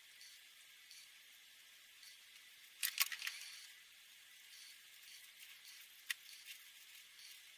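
Felt-tip alcohol marker (Promarker) faintly scratching and squeaking over paper as letters are coloured in, broken by a quick cluster of sharp clicks about three seconds in and one more click about six seconds in.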